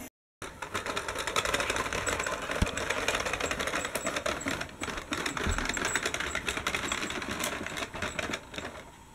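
A plastic toy tram being run along a wooden toy track, its wheels making a dense, rapid clicking rattle like typing, with a couple of low knocks.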